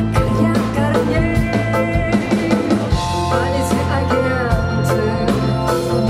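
Live rock band playing: electric guitar, bass guitar, drum kit and violin, with a female lead vocal.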